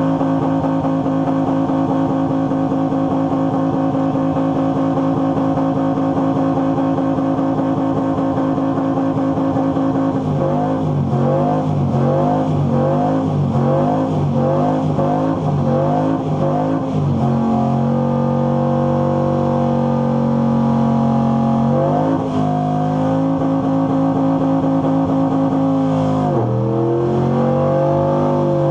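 Pickup truck's engine held at high revs during a burnout, spinning its rear tyres in heavy smoke. About ten seconds in, the revs start rising and falling rapidly over and over for several seconds, then settle at a lower, steady pitch, dipping briefly twice near the end.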